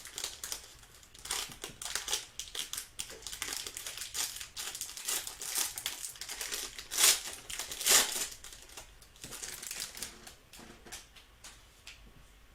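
Trading card pack wrapper crinkling and crackling as packs and cards are handled, with two louder crackles about seven and eight seconds in, dying down near the end.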